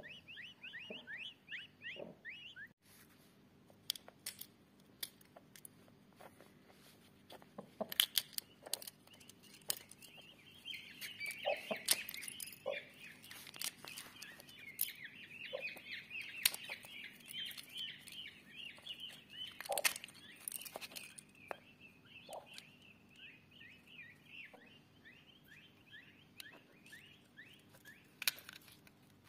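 Newly hatched Indian peafowl chicks peeping in fast trains of short, high, falling peeps. Scattered sharp clicks come from eggshell being handled and broken.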